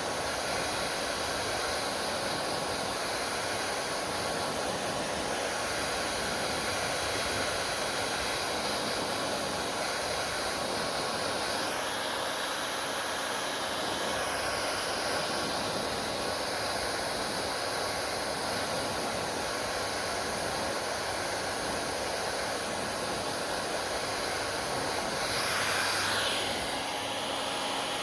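Hair dryer running steadily: a continuous blowing hiss with a faint motor hum, swelling briefly near the end.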